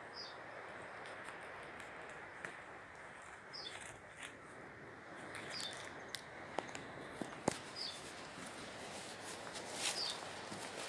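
A small bird calling with short high chirps, about one every two seconds, over a steady rushing hiss. A few sharp clicks, the loudest sounds, come just past the middle.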